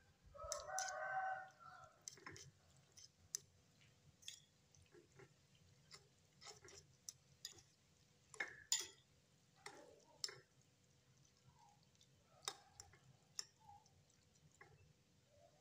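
A metal fork clinking and scraping against a ceramic bowl while stirring noodles in broth, as scattered light clicks. A brief pitched call sounds about half a second in.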